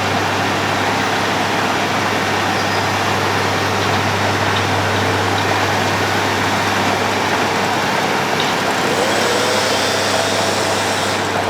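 Road planing machine (cold planer) running with a steady, unbroken drone and a constant low hum.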